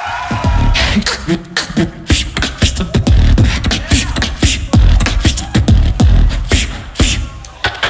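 Solo vocal beatboxing: a dense, fast rhythm of deep kick drums that slide down in pitch, under sharp snare and hi-hat sounds, starting suddenly. The pattern breaks briefly just before the end.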